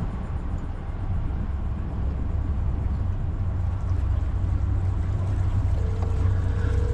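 Outboard engine of a Pursuit C238 center-console boat idling with a steady low rumble. A short steady tone sounds near the end.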